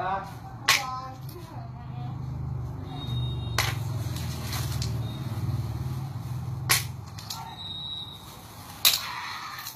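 Pieces of jade offcut clicking sharply against one another and the table as they are handled, four separate knocks a few seconds apart, over a low hum that fades out about seven seconds in.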